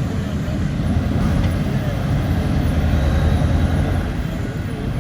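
Heavy diesel engine of a large mining machine running steadily with a low rumble.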